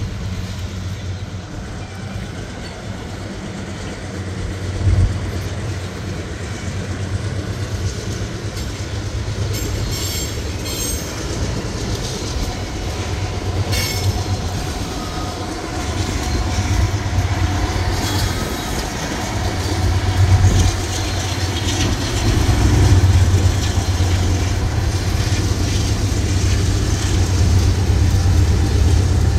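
A freight train of hopper cars rolling past: a steady low rumble with wheels clacking over rail joints and a few sharp clanks, growing louder in the second half.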